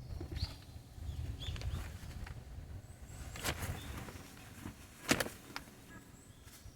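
Two sharp knocks, about three and a half and five seconds in, the second one louder, over a low steady rumble and a few faint bird chirps.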